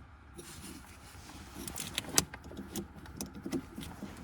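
Things being handled and moved: a run of small irregular knocks, clicks and rustles, with one sharp click about two seconds in.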